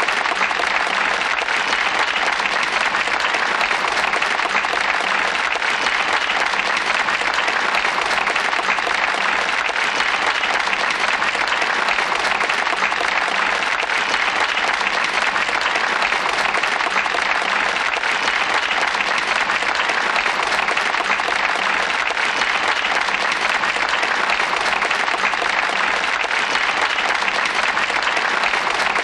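Crowd applause, a steady dense clapping without pauses or swells.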